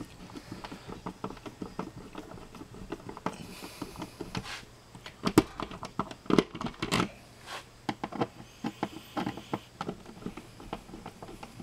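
Hand screwdriver driving the mounting screws of a wall outlet into a plastic electrical box: irregular small clicks and scrapes, with a few louder knocks in the middle.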